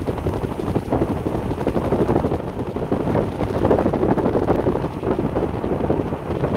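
Wind buffeting the microphone over a steady low rumble of a moving vehicle.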